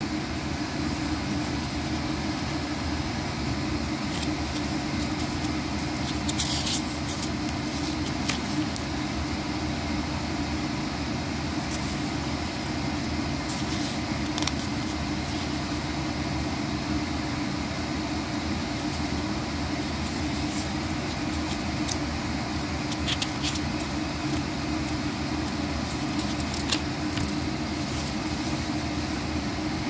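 A steady low hum with a hiss over it, like a running fan or other appliance. A few brief soft paper crackles stand out from it as the pages of a small paper booklet are turned by hand.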